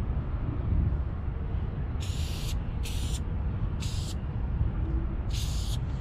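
Rust-Oleum aerosol spray paint can hissing in four short bursts, each about half a second, over a steady low rumble.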